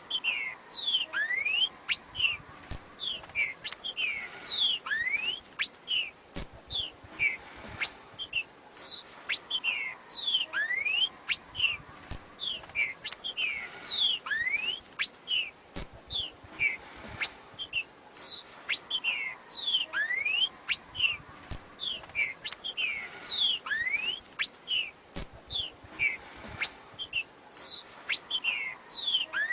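Female green-winged saltator (trinca-ferro) giving its 'macheado' calls: a rapid, unbroken run of short, high whistled notes sweeping downward, with a lower rising upslurred note every few seconds.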